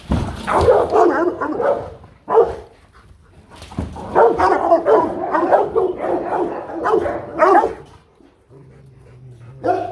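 Rottweilers barking fiercely: threat barking in rapid volleys. A dense burst comes at the start and a single bark at about two and a half seconds. A long run of barks follows from about four to eight seconds, then a lull, then another bark near the end.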